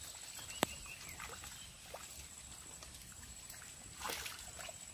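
Floodwater sloshing faintly around a fishing net being hauled up by hand, with a sharp click about half a second in and a short splash just after four seconds.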